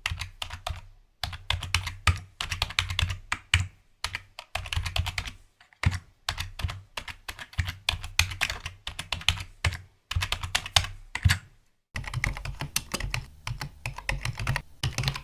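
Typing on a computer keyboard: rapid runs of key clicks in bursts with short pauses, quicker and denser near the end.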